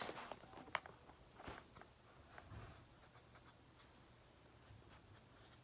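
Near silence: room tone with a few faint clicks and light handling noises.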